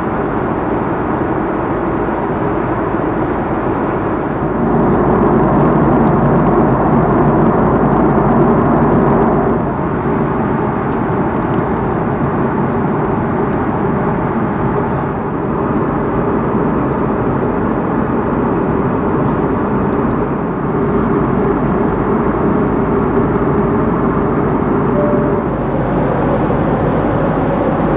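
Steady cabin noise of an Airbus A330-300 in cruise: an even rush of airflow with the drone of its Rolls-Royce Trent 700 engines underneath. It grows louder from about five seconds in and drops back about ten seconds in.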